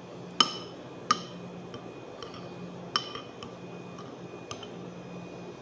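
Metal spoon clinking against the bowl while scooping noodles: three sharp ringing clinks in the first three seconds, then a fainter tap.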